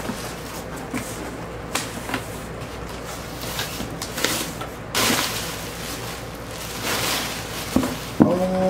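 Hands rummaging through plastic air-pillow packing in a cardboard shipping box: crinkling plastic and rubbing cardboard, with louder rustles about five and seven seconds in. A person's voice, rising then falling, starts near the end.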